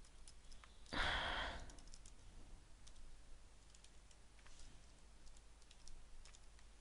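Faint computer keyboard typing: scattered single keystrokes as a web address is typed. A breath is heard about a second in, louder than the keys.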